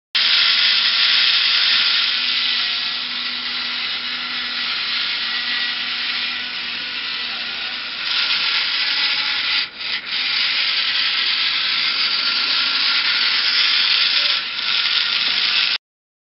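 Small electric drive motors and plastic reduction gears of a homemade robot, built on an old RC car chassis, running as it drives: a steady hissing whirr that breaks off briefly about ten seconds in and stops abruptly near the end.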